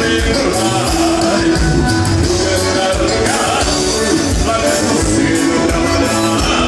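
Live gaúcho dance band playing loud through the hall's PA speakers, music with a steady dance beat.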